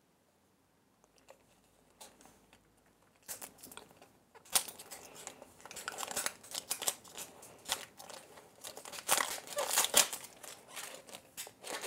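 A surprise egg's wrapper crinkling and tearing as it is unwrapped by hand, a rapid irregular crackle that starts about three seconds in.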